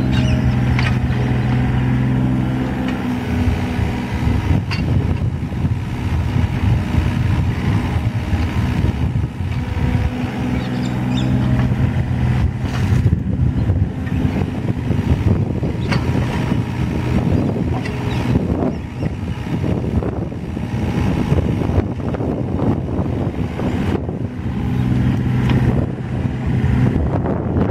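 Yanmar VIO27-3 mini excavator's three-cylinder diesel engine running steadily while the machine digs, with gusts of wind rumbling on the microphone and drowning the engine note for long stretches.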